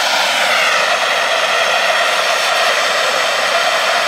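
Weed-burner torch held to cardboard to light it, its flame burning with a loud, steady rush.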